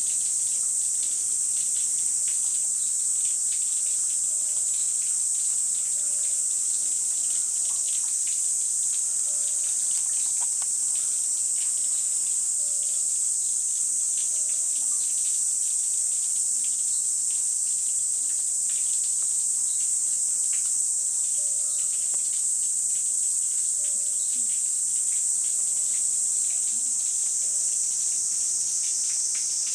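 Steady, high-pitched drone of a summer insect chorus, unbroken and even in level.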